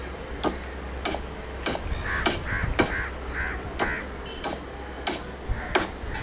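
Hammer blows on a building site, about ten sharp strikes in a steady rhythm roughly every 0.6 s, with a few short calls in between.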